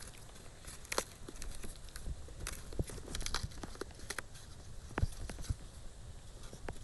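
Irregular crackles and clicks of a strip of thermocol (expanded polystyrene foam) being pressed and crumbled down into a cup of petrol.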